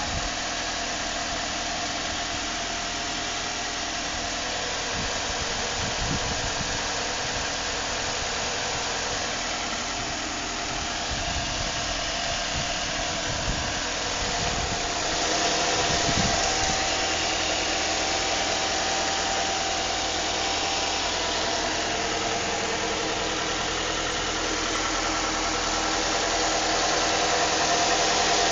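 2006 Nissan Altima 2.5 S's 2.5-litre four-cylinder engine running, with an irregular low knocking whose cause is unknown; it gets a little louder from about halfway through.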